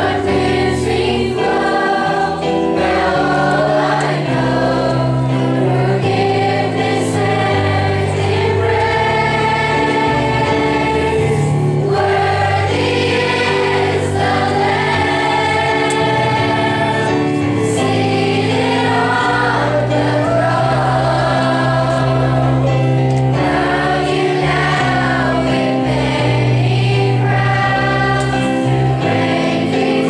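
Large school choir of children and teenagers singing together.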